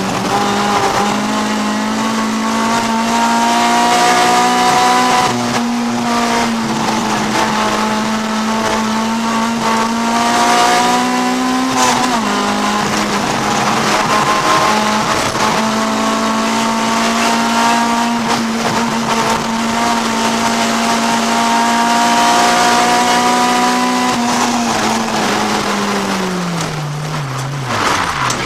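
Honda CRX race car's B20 VTEC four-cylinder engine heard from inside the cockpit, running hard at high revs. The pitch dips briefly once partway through, then holds, and falls steadily near the end as the revs drop.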